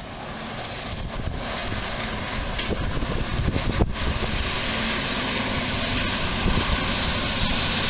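Wind rushing over the microphone of a moving bicycle, mixed with the rumble of a semi-trailer truck close ahead. The noise grows steadily louder.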